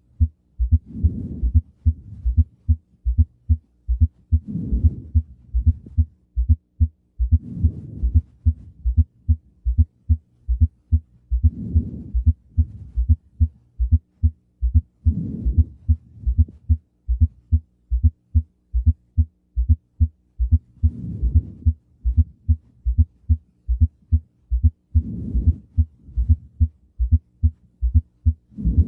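Heart sounds heard through a stethoscope in a gallop rhythm with a fourth heart sound (S4, atrial gallop) before the first sound, as short low thumps repeating rapidly. A soft rushing sound swells about every four seconds.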